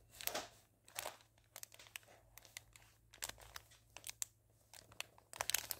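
Small clear plastic bags of round diamond-painting drills crinkling as they are handled, in soft, irregular crackles that grow busier near the end.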